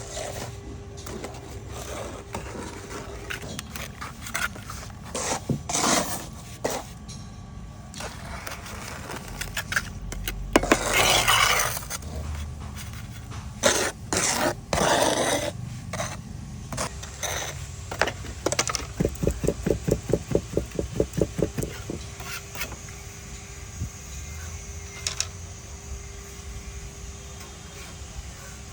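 Hand-work noises while shaping cement: scattered knocks and scrapes, two longer scraping passes, and a quick run of knocks about five a second in the middle, over a faint steady hum.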